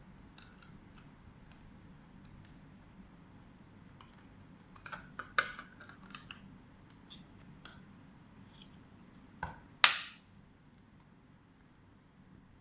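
Rear cover of a GOLE1 mini PC being fitted back on: light clicks and taps as it is handled, then a loud, sharp snap about ten seconds in and another at the very end as it clips into place.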